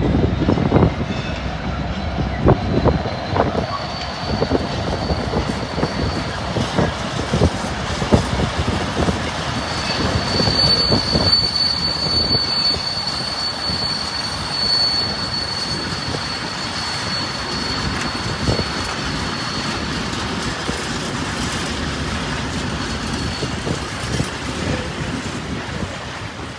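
A train running through the station, its wheels clattering over the track with many sharp clacks, densest in the first half. A thin, high, steady squeal sets in about four seconds in and fades out around twenty seconds.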